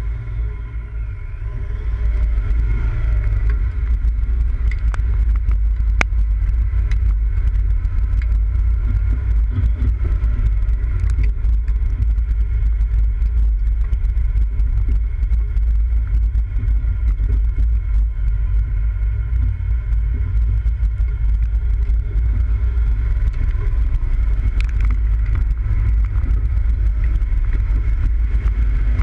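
Off-road 4x4 driving over a dirt track and grass field, heard from an onboard camera: a steady low rumble of engine and driving noise that grows louder about two seconds in, with occasional sharp clicks from the bumpy ground.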